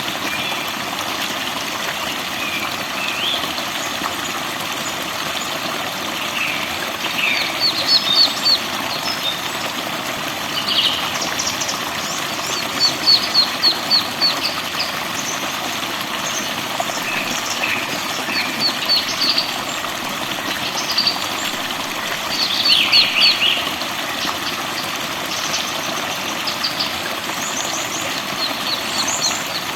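Songbirds chirping and singing in short phrases of quick repeated notes, over a steady rush of running water.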